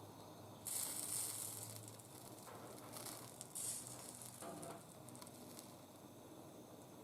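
Solder flux sizzling as solder is heated onto the copper lamp top, in a hissing burst about a second in and a shorter one a little after the middle.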